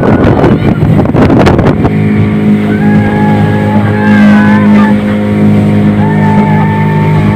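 Wind buffeting the microphone over a speedboat's Suzuki outboard engine running at speed for about two seconds, then music cuts in abruptly: a sustained melody over a steady low drone.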